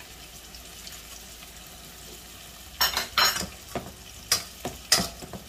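Onions and garlic sizzling steadily in hot olive oil in a frying pan. From about three seconds in come several sharp knocks and scrapes.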